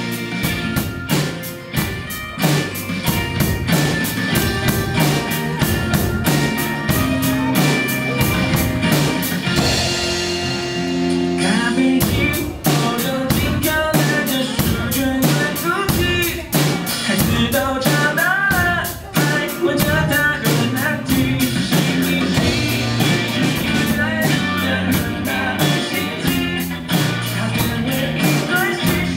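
Drum kit played along to a rock song with singing and guitar, with steady, closely spaced drum and cymbal strokes; the cymbals drop out briefly about eleven seconds in before the beat picks up again.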